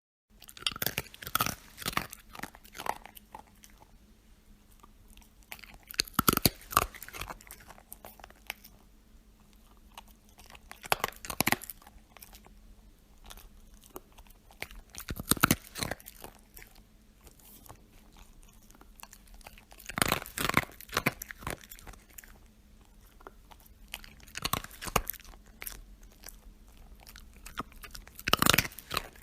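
A dog crunching and chewing hard treats, in about seven bouts of quick crunches a few seconds apart with quieter pauses between.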